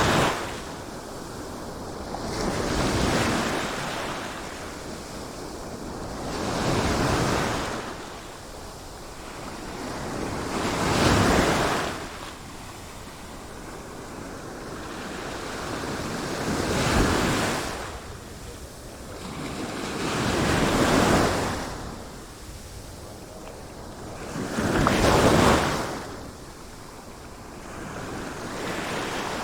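Sea waves breaking and washing on a shore, a swell of surf about every four seconds, each rising and falling away.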